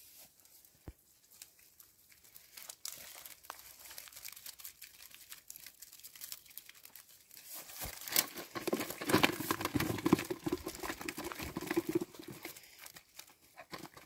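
Rustling and crackling of a mesh keepnet full of roach being handled, the net's rings and mesh rubbing against grass and the fish inside. Light scattered rustles and clicks at first, then about halfway through a louder, busier stretch of crackling as the net is worked over a plastic bucket to tip the fish in.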